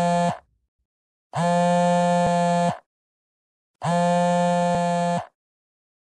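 Loud electronic horn-like buzzer tone, steady in pitch, sounding in identical long blasts of about a second and a half with a second of dead silence between: one blast ends just after the start, then two more follow.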